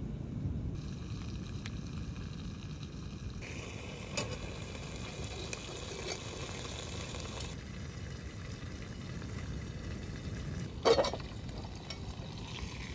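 Pork belly sizzling inside a covered cast-iron pot, over a steady low rumble. Just before eleven seconds in, one short metal clink as a wire lid lifter catches the iron lid.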